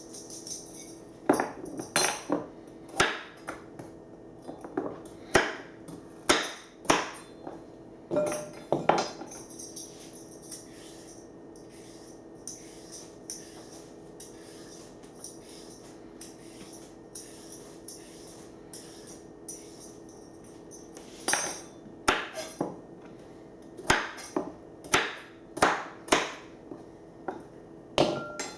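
Knife chopping apples into small pieces on a cutting board: sharp knocks about once a second, in two spells with a pause of roughly ten seconds between.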